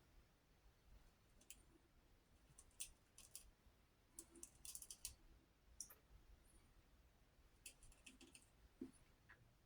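Faint, short crackling scrapes of a razor blade cutting stubble, a handful of quick strokes spaced about a second apart.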